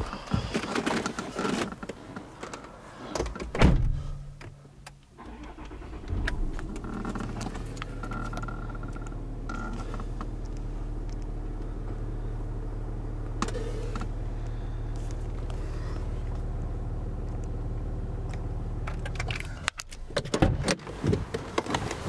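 Land Rover Discovery's engine starting about six seconds in and idling with a steady low hum, heard from inside the cabin, then switched off abruptly near the end. Knocks and rustling of handling in the cabin come before and after, with a loud knock just before the start and a brief steady high tone early in the idle.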